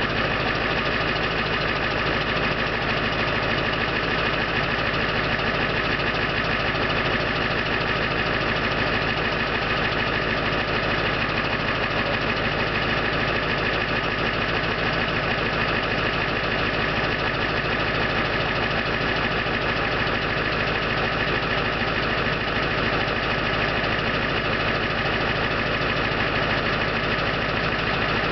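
2001 Ford F-250's 7.3 L Powerstroke V8 turbodiesel idling steadily at the exhaust tip during warm-up after a cold start at 24 °F.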